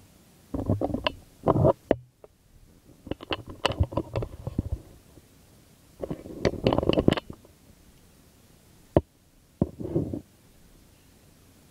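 Handling noise on the phone's microphone: four bursts of rubbing and knocking, the last one short, with a sharp click just before it.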